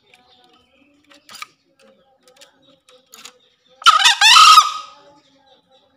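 Male green junglefowl crowing once, a single short crow of about a second, about four seconds in.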